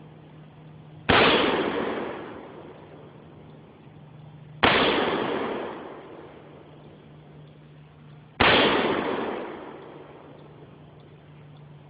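Three AR-15 rifle shots, about three and a half seconds apart, each a sharp crack that trails off over a second or two.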